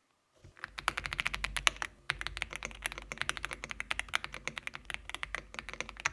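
Rapid typing on a mechanical keyboard: fast, dense keystroke clicks, with a brief pause about two seconds in.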